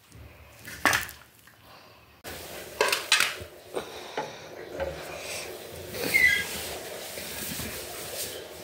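Stainless steel plate and utensils clinking and knocking in scattered strokes, a few sharper knocks about 1 s and 3 s in, with a brief high squeak about 6 s in.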